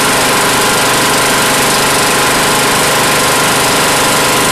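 A small engine running steadily at constant speed.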